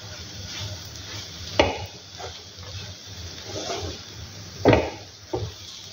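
Wooden spatula stirring sev bhaji in a nonstick pan: a steady scraping and rustling, with three sharp knocks of the spatula against the pan, the loudest a little before the end.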